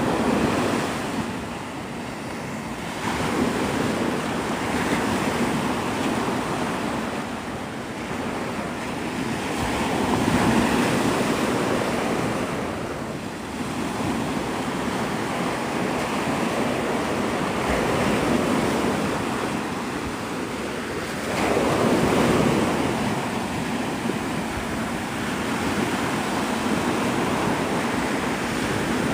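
Gulf of Mexico surf breaking on the beach, each wave swelling and falling away every few seconds, with wind buffeting the microphone.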